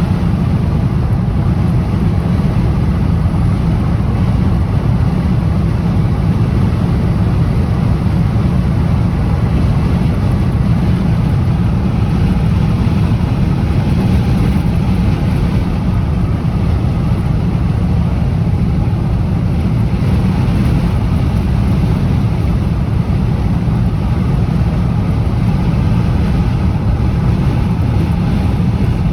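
High wind blowing across the microphone: a loud, steady low rumble.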